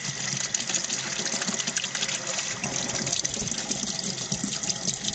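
Water from a hose spraying and splashing steadily over the bare metal chassis of a Heathkit AR-3 receiver in a sink, rinsing it off.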